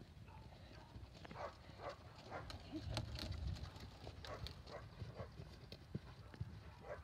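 Horse trotting on a sand arena: rhythmic hoofbeats, a few a second.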